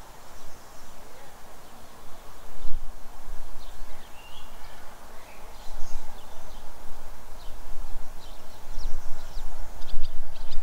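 Open-air rural ambience: wind gusting on the microphone as an uneven low rumble, with small birds chirping now and then, most often near the end.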